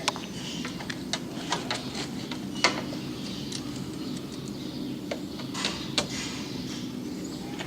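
Rear engine access door of a John Deere 240 skid steer being shut and fastened with a newly riveted truck hood strap: a series of sharp metal clicks and knocks, the loudest about two and a half seconds in, over a steady low hum.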